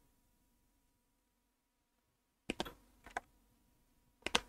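About two and a half seconds of near silence, then three or four sharp clicks and light knocks of things being handled on a desk, with another pair of clicks near the end.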